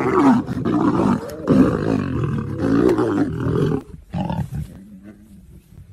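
Lions snarling and roaring as they fight, in several long, rough bouts that die down after about four seconds, with one short growl after.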